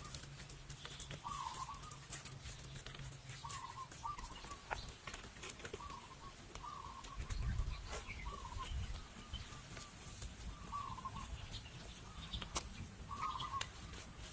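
Short wavering bird calls repeating every second or two, with scattered light clicks and knocks.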